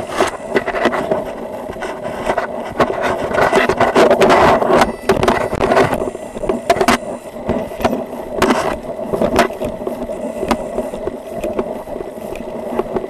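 Body-worn camera scraping and rustling against the officer's uniform as he walks through grass, with irregular knocks over a steady hum.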